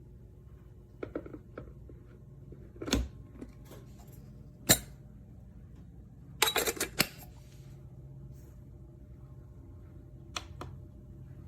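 Scattered handling clicks and knocks over a low steady hum: a few light clicks, a thump about three seconds in, a sharp loud click near five seconds, a quick rattle of clicks around six and a half seconds and one more click near the end.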